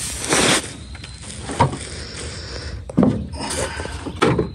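A plywood panel scraping and knocking as it is manoeuvred into a bus luggage bay, in several short bursts of scraping with a few sharp knocks.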